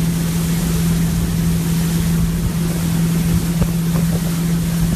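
Motorboat engine running at a steady cruising speed while towing a water-skier, a constant low hum under loud wind noise on the microphone and the rush of water.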